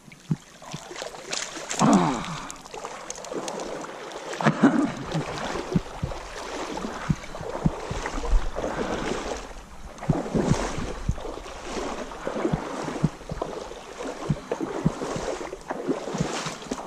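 Water sloshing and splashing close to the microphone, uneven and on and off, with scattered knocks and swishes.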